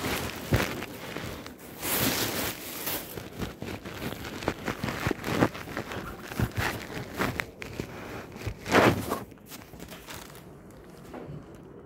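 Handling noise: cloth rubbing and brushing against a phone's microphone, an irregular run of rustles, crackles and knocks with the loudest knock about nine seconds in, then quieter near the end.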